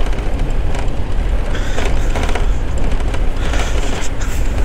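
Motorcycle riding along at a steady speed: the engine runs steadily under a heavy low rumble of wind buffeting the microphone.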